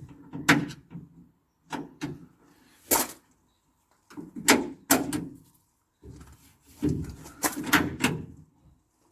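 Rear door lock and latch of a 2013 Ford Transit van being locked and unlocked by hand: a series of sharp clicks and clunks in clusters about a second apart, with short quiet gaps between.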